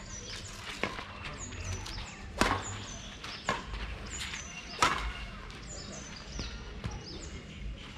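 Badminton rackets hitting a shuttlecock in a rally: sharp hits roughly one to one and a half seconds apart, two of them much louder than the rest, with fainter hits near the end.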